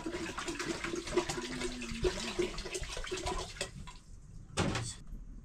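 Water being poured into a cooking pot, the water for millet-flour dhindo, with the pitch of the filling rising slightly before it stops after about three and a half seconds. A brief second burst of sound follows near the end.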